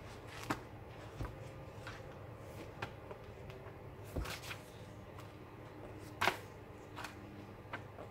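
Pages of a thick paperback book being turned by hand: soft paper rustling with several short, sharp page flicks, the loudest about six seconds in.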